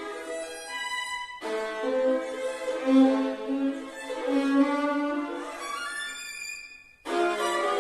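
Violin playing a melodic passage of changing notes. The sound breaks off and restarts abruptly about a second and a half in, and again near the end after a brief drop.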